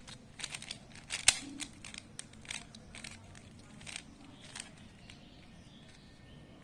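Handling noises: a run of irregular small clicks and light rustling, with one sharper click about a second in, thinning out after about five seconds.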